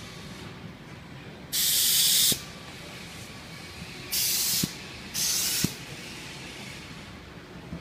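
Three short blasts of compressed air hissing, each starting and stopping abruptly: the first, about a second and a half in, is the longest and loudest, and the other two follow close together a few seconds later. A low steady workshop background runs underneath.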